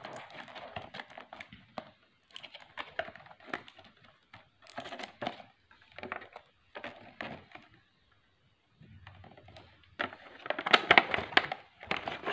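Cardboard retail box and its plastic-wrapped contents being handled and pulled open: irregular scraping, rustling and crackling as the inner packaging slides out, with a louder flurry of crackling about ten seconds in.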